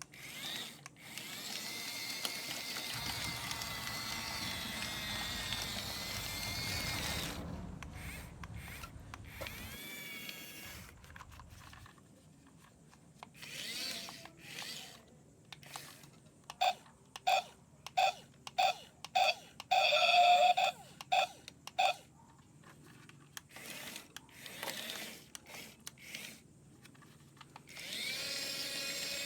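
Small electric motor of a toy excavator whining in runs, its pitch wavering. About two-thirds of the way through come a series of short electronic beeps.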